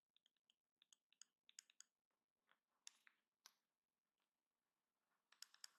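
Near silence with a few faint, scattered clicks: the taps of a stylus writing on a tablet.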